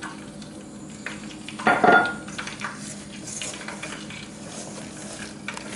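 A utensil stirring doughnut batter in a mixing bowl, scraping and clinking against the bowl, with one louder ringing clink about two seconds in.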